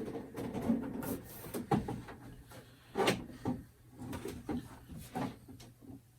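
Things being moved and handled on a desk: irregular knocks, clunks and rubbing, the loudest about three seconds in, over a low steady hum.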